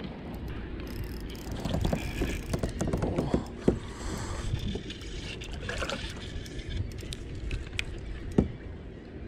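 Water sloshing and lapping against a fishing kayak's plastic hull, with scattered knocks and clunks of gear against the kayak. Two sharper knocks stand out, near the middle and near the end.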